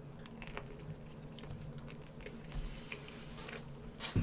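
Faint chewing and mouth sounds of a person eating, a few small soft clicks over a low steady hum.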